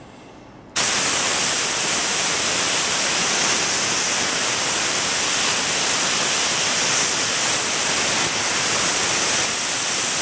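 Dual-action gravity-feed airbrush with a 0.2 mm nozzle spraying paint: a steady hiss of air that starts suddenly about a second in and cuts off suddenly near the end, as the trigger is pressed and released.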